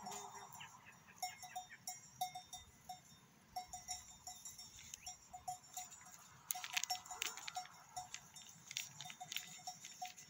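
Faint sounds of an approaching flock of sheep and goats: a string of short, evenly pitched notes a few times a second, mixed with scattered light clicks and patter, busiest a little past the middle.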